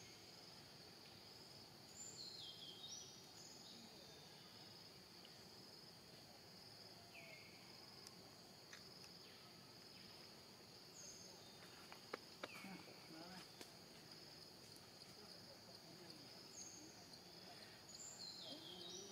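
Faint outdoor ambience: a steady high insect drone, with short chirps that fall in pitch every few seconds.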